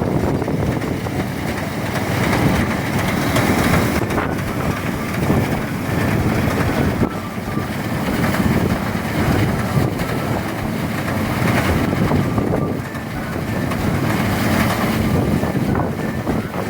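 Engine-driven rice thresher running steadily: a loud, continuous, dense mechanical noise with no breaks.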